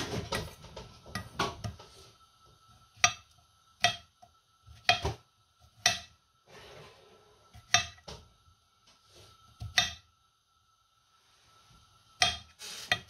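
Chef's knife chopping cucumber on a granite cutting board: a quick run of chops at first, then single sharp knocks of the blade on the stone about once a second.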